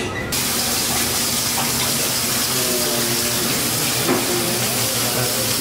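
Water running steadily from a tap into a stainless-steel sink, starting abruptly just after the beginning.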